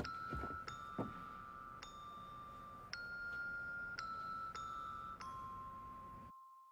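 Background music: a slow line of held bell-like notes, a new note about once a second, with a few soft low thumps in the first second. It cuts off suddenly about six seconds in.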